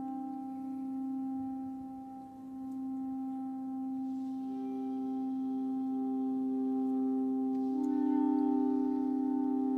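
A clarinet sextet holding long, steady notes in a sustained chord. A higher note enters about four and a half seconds in, and more voices join near eight seconds.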